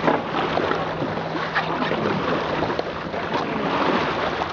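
Water and wind noise aboard a paddled boat, with scattered short splashes.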